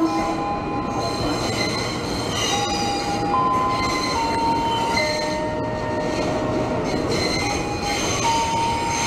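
Ex-JR 205 series KRL commuter electric train rolling slowly past with its wheels squealing: several high, steady squeal tones that jump to a new pitch every second or so over a continuous rumble of wheels on rail.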